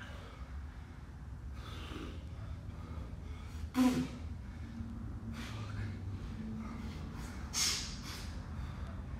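A man breathing hard after heavy barbell work: sharp, rushing exhales and gasps about every two seconds, the loudest about four seconds in with a short voiced catch.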